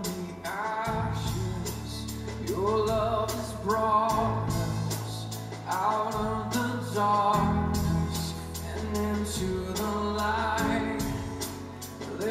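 Live worship band playing a contemporary Christian song: a lead voice sings phrases over guitar, long sustained bass notes and drums keeping a steady beat.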